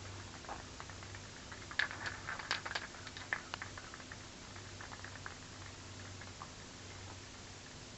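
Light clicks and taps, a quick cluster about two seconds in, then scattered single ticks, over a faint low steady hum.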